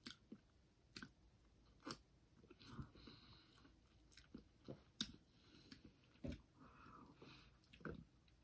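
Faint chewing and mouth sounds of a person eating a soft slice of cheesecake, with scattered small clicks.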